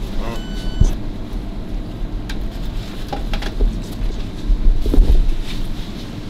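Low rumbling handling noise from a handheld camera being moved about, with uneven thumps that are loudest about five seconds in, over a steady low hum. A short electronic beep sounds about half a second in, and a few small clicks come between.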